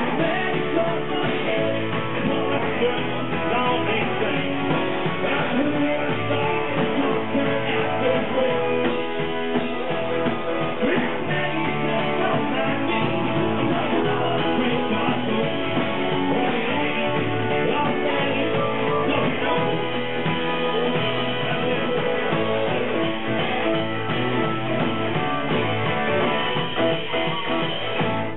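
Rock band playing live: electric guitars strummed over drums, at a steady full volume.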